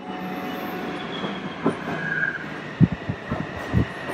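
Taipei MRT train pulling into an underground station platform: a steady rumble of wheels on rail, with a run of low thumps in the second half as the train comes alongside.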